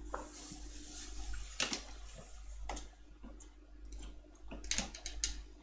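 A handful of short, sharp clicks from a computer mouse being clicked while browsing files, a few near the middle and a quick cluster near the end, over a steady low electrical hum and a soft hiss in the first second or so.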